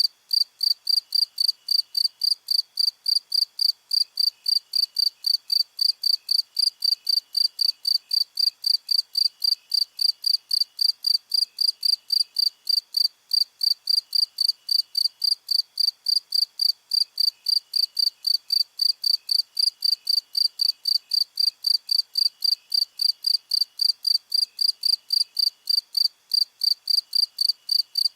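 A cricket chirping in a steady, even rhythm of about three high-pitched chirps a second, with fainter, lower chirping from other crickets coming and going behind it.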